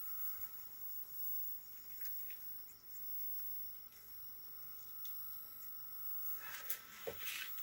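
Faint, steady high-pitched electronic whine of several thin tones, with a few brief rustling noises near the end.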